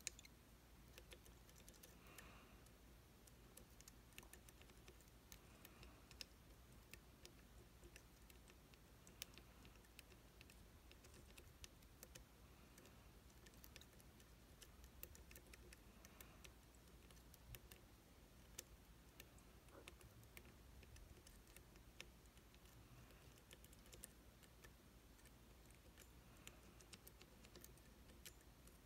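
Faint, irregular clicking and tapping of a lock pick working the pins of an IZIS pump lock.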